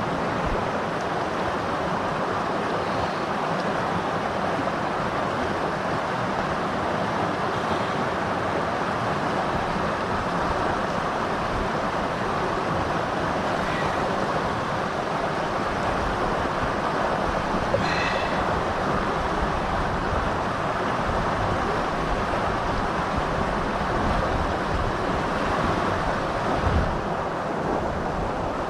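Fast-flowing river water rushing steadily, an even continuous noise.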